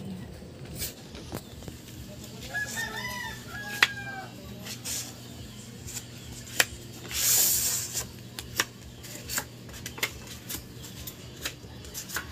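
A rooster crowing about two to four seconds in. Around it are sharp clicks and taps of a putty knife working lacquer putty on a wooden table top, with one longer hissing scrape about seven seconds in.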